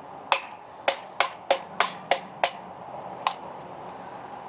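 A quick run of about eight sharp strikes on a ceiling fan, roughly three a second with a longer pause before the last, as its metal is being dented. Two faint ticks follow near the end.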